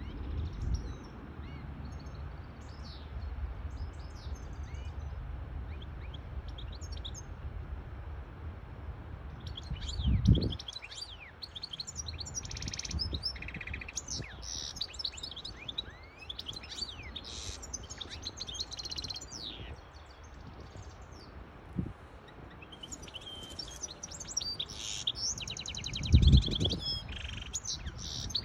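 Caged goldfinch hybrid (goldfinch mule) singing a fast twittering song of quick high trills and slides, sparse at first and running almost without a break from about nine seconds in. Underneath is a steady low rumble, with two short, louder low thumps, one about ten seconds in and one near the end.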